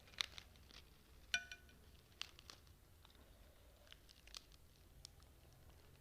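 Close-miked eating sounds: a few scattered crisp clicks and crunches, with one ringing clink about a second in, as of a utensil striking a ceramic or glass dish.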